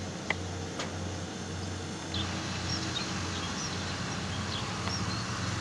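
A small farm engine, most likely the rice harvester working the paddy, running steadily with a low, slightly pulsing drone. A few faint, short high chirps sound over it in the second half.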